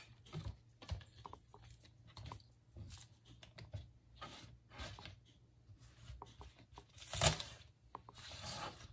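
Chef's knife cutting green onions on a plastic cutting board, with the stalks being handled in between: scattered soft taps, snips and rustles, with one louder knock about seven seconds in.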